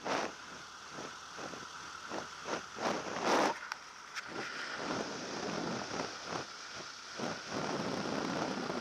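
Marquart Charger biplane rolling on a grass airfield, its engine running under a rush of wind on the wing-mounted camera. Irregular bumps and rattles come through, the loudest about three seconds in.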